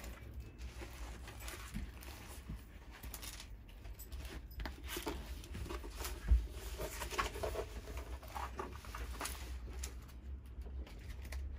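Rustling and crinkling of a rolled diamond painting canvas and its plastic protective film being unrolled and flattened by hand, with one louder thump about six seconds in.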